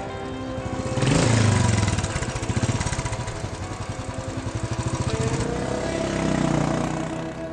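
Royal Enfield single-cylinder motorcycle engine revved about a second in, then running at a fast even beat, and revved again near the end.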